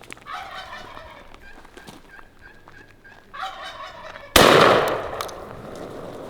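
Wild turkey gobbler gobbling twice, each gobble about a second long. A single loud gunshot follows about 4 seconds in, fading over a second.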